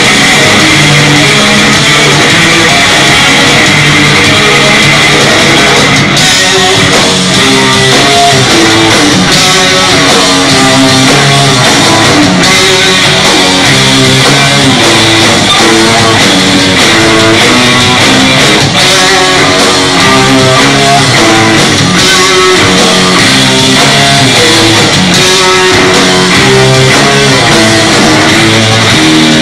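Heavy rock band playing live at full volume: electric guitar riffing over bass guitar and drums.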